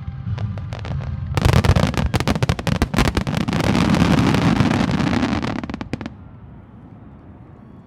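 Fireworks grand-finale barrage: low booming, then about a second and a half in, a dense volley of rapid bangs and crackling shells that stops abruptly about four and a half seconds later.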